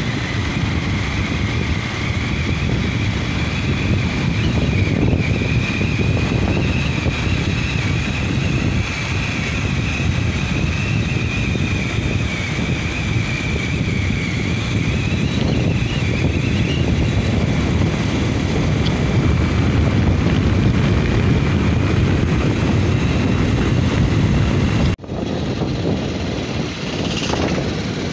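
Motorcycle riding at speed: steady wind rush on the microphone over the engine's drone, with a thin whistle that wavers in pitch for the first half. About 25 seconds in, the sound cuts abruptly to a thinner mix of engine and road noise.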